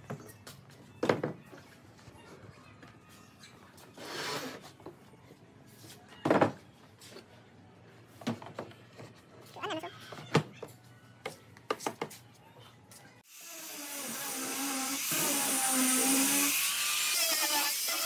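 Wooden box parts being handled and fitted: scattered sharp wooden knocks, three of them loud, as pieces are set down and placed, with a short scrape about four seconds in. Background music starts about thirteen seconds in.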